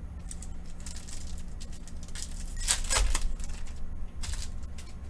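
Foil wrapper of a Panini Prizm UFC trading-card pack crinkling and tearing as it is ripped open and the cards are handled, in short scratchy bursts. The loudest crinkle comes about three seconds in, and another comes near the end, over a steady low hum.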